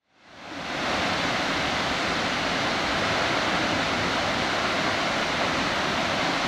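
Steady rushing roar of a large waterfall, the Ekom-Nkam falls, fading in over the first second.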